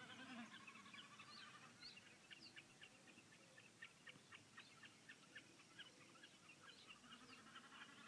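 Common snipe calling: a faint, irregular series of short clipped notes, a few each second.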